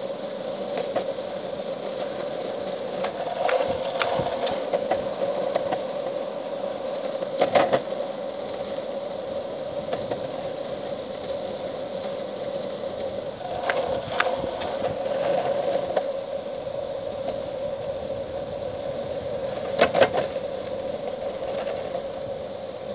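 Mini longboard's wheels rolling over asphalt: a steady rolling hum, broken by three short sharp clacks, about a third of the way in, just past the middle and near the end.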